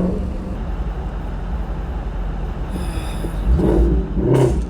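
Shelby GT350R's 5.2-litre flat-plane-crank V8 exhaust rumbling on the move, with a few sharp pops and crackles close together near the end.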